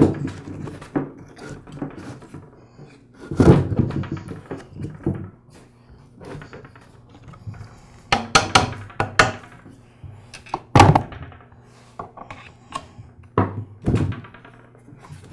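Knocks and scrapes of an air compressor's aluminum pump-and-motor assembly being slid into its plastic housing and handled on a workbench. The sounds are scattered: a longer scraping knock a few seconds in, a cluster of clicks and knocks in the middle, and one sharp knock a little later.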